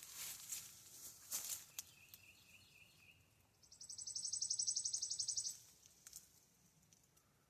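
Faint outdoor ambience with a bird's rapid, high trill lasting about two seconds near the middle, after a fainter, lower trill a moment before it.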